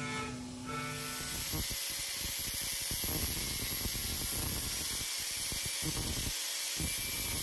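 Angle grinder running, its disc trimming the edge of a carbon fibre sheet: a steady grinding noise that starts about a second and a half in, once the music stops.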